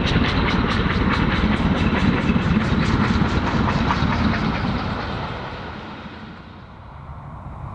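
LMS Stanier Class 5MT 'Black Five' 4-6-0 steam locomotive and its train passing, with a quick, regular beat. The sound fades away about five to six seconds in.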